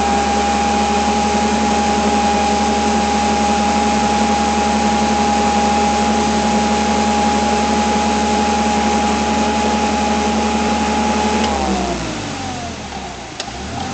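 Forklift's hydraulic lift running under load as the mast raises a hanging engine: a steady, loud whine over a lower hum. Near the end the pitch glides down and it winds down as the lift stops.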